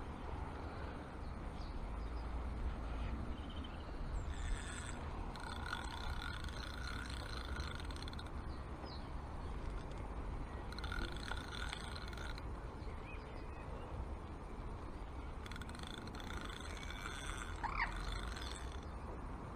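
Vintage Hardy Altex No. 2 Mk V fixed-spool reel being wound in three spells of a couple of seconds each, its gears giving a steady whirring tone, over a constant low rumble of wind on the microphone.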